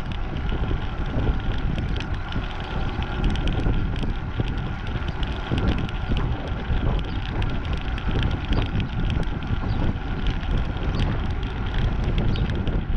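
Strong wind buffeting the microphone of a camera on a moving bicycle, a loud steady rush with many light clicks and rattles from the ride.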